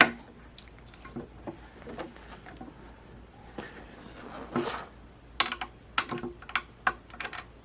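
Scattered clicks and knocks of hands fitting a replacement roller and its hardware into a MaxiClimber climber's frame. A sharp click at the start, then a quick run of clicks near the end.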